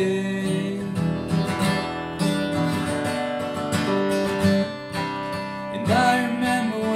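Acoustic guitar being strummed, chords ringing between steady downstrokes.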